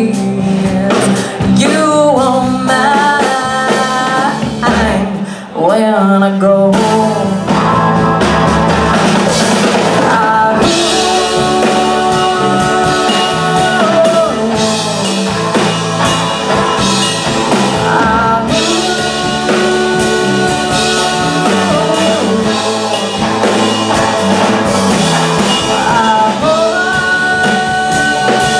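Live rock band playing: electric guitar, electric bass and a drum kit with cymbals, a woman singing lead. The sound drops briefly about five seconds in, then the full band comes back in.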